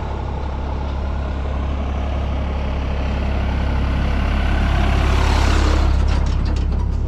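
A large vehicle's engine running with a steady low rumble, growing louder about five seconds in and then easing.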